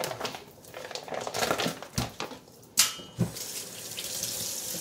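Plastic meat packaging crinkling and rustling as it is cut and pulled open by hand. A sharp knock comes about three seconds in, then the kitchen tap runs steadily into a stainless steel sink.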